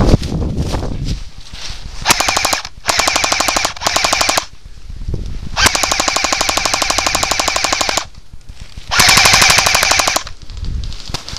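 Automatic electric airsoft rifle firing full-auto in five bursts of rapid, evenly spaced shots: three short bursts, a longer one of about two seconds, then one more short burst. It follows a second of rustling from moving through dry leaves.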